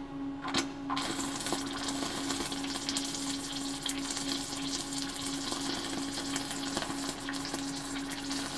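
Stick (shielded metal arc) welding under water with a Vulcan 460-AP mild-steel electrode: after a couple of brief scratches the arc catches about a second in and then crackles steadily.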